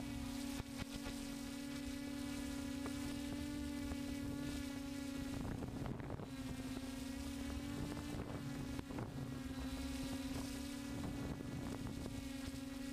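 DJI F550 hexcopter's six motors and propellers buzzing at a steady pitch while it hovers, with a brief waver about halfway through. Light wind noise is mixed in.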